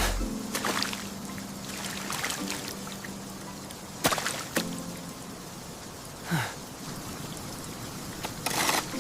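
Liquid trickling and pouring, with a few sharp light knocks or clinks and a short splashy burst near the end.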